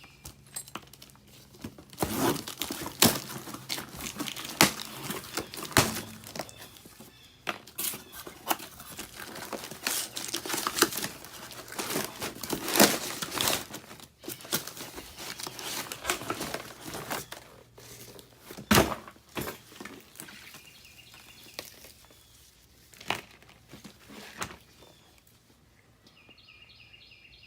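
Irregular crinkling and rustling of packaging being handled and torn open, with scattered sharp clicks and knocks that thin out in the last few seconds.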